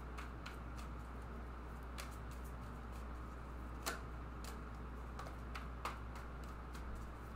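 A tarot deck being shuffled by hand, overhand, card edges giving irregular light clicks with a few sharper snaps, over a steady low hum.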